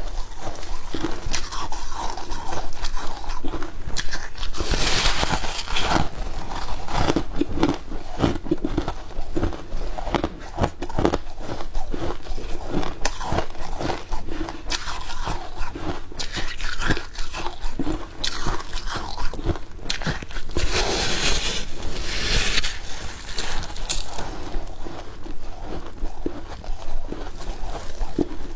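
Close-miked biting and chewing of freezer frost: a dense run of crisp crunches, with louder crunching bursts about five seconds in and again past twenty seconds.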